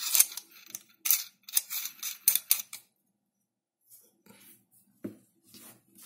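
Metal tactical pen handled in the hands: a quick run of sharp clicks and scrapes over the first three seconds, then a few faint soft taps as it is laid down on a cloth mat.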